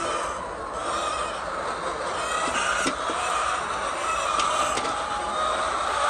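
Steady din of a large flock of hens clucking and calling together in a poultry house, with a couple of light knocks.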